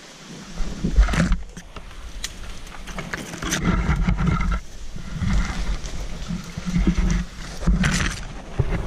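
Conifer branches and brush rustling and scraping against the camera as it is pushed through dense undergrowth, with irregular crackles and a low rumble of handling noise on the microphone.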